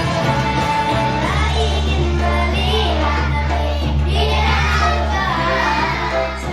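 A children's choir singing a devotional song over instrumental backing music with sustained bass notes.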